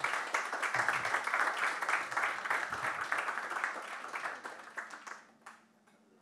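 Audience applauding, thinning out and dying away about five seconds in.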